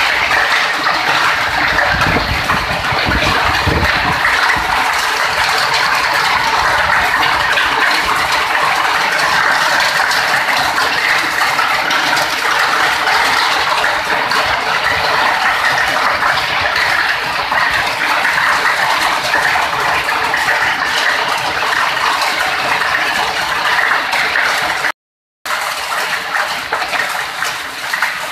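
Hail and heavy rain falling on a corrugated metal roof, a loud, steady hiss of countless small impacts. The sound cuts out briefly about 25 seconds in and returns a little quieter.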